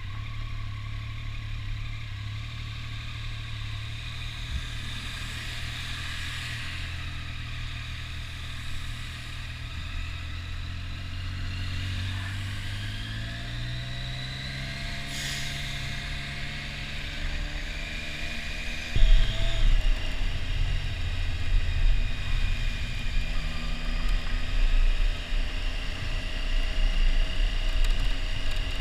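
Motorcycle engine running at low speed through traffic, then rising in pitch as the bike accelerates. From about two-thirds through a louder low rumble joins it, over a hiss from the wet road.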